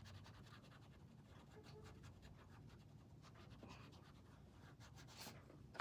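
Faint, quick scratching strokes of colouring on a paper colouring page.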